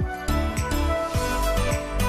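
Background music: an electronic track with sustained chords and a steady kick-drum beat, about two beats a second.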